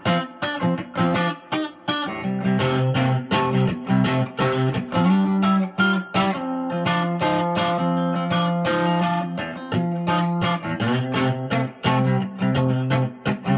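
Fender Telecaster electric guitar strummed in a quick rhythmic chord pattern, with the chords changing every second or so.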